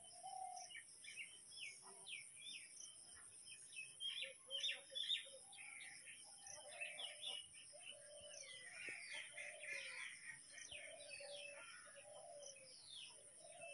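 Faint chorus of birds chirping, with many short, quick calls overlapping, over a thin steady high-pitched tone.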